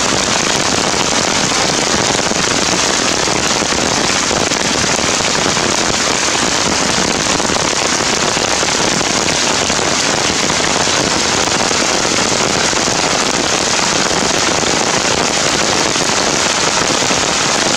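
Heavy rain falling, a steady, dense hiss of drops pattering on surfaces close by.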